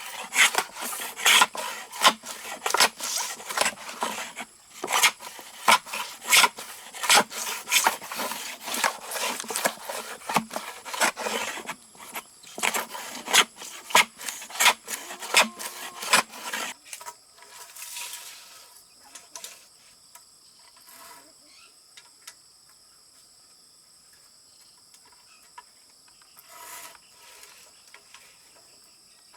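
Rapid knocking and scraping on wood, several strokes a second, stopping about seventeen seconds in. Insects trill steadily behind.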